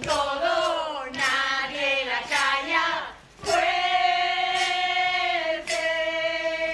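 Voices singing on stage, moving through several short notes and then holding one long note from about halfway through.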